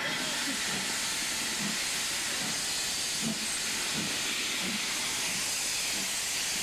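Steady hiss of steam escaping from LMS 8F 2-8-0 steam locomotive No. 48431.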